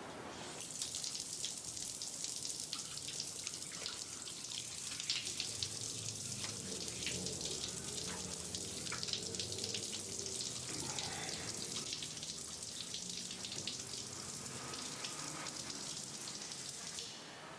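Shower spray running, water splashing down on a tiled shower with a dense, steady hiss of droplets. It starts about a second in and stops suddenly near the end.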